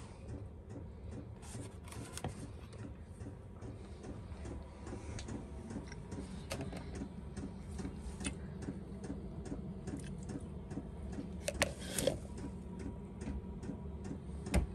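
Steady low mechanical hum with a faint regular pulse, and a few sharp clicks late on.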